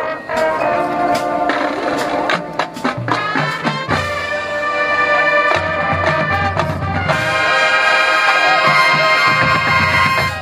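High school marching band playing brass over drums, with bass drum hits, building into a long, loud held full-band chord in the last few seconds that cuts off sharply at the end: the closing chord of the show.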